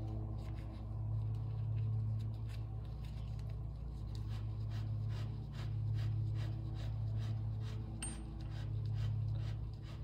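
A steady low hum that swells and fades every couple of seconds, under a regular run of light metallic clicks, a few each second.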